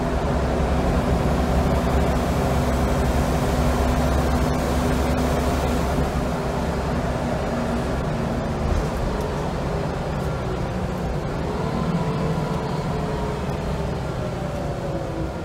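Wright Solar Scania L94UB bus engine and ZF automatic gearbox heard from inside the passenger saloon while under way, a steady low drone that eases off about six seconds in. A faint whine slides in pitch over the last few seconds.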